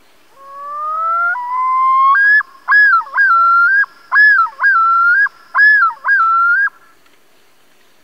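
Common loon calling loudly. One long note rises in pitch for about two seconds, then breaks into a run of about five repeated looping notes that stop near the seven-second mark.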